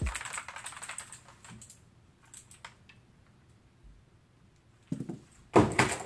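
Rapid clicking of computer keyboard keys being typed for about two seconds, fading out, followed by a few scattered clicks and two louder knocks near the end.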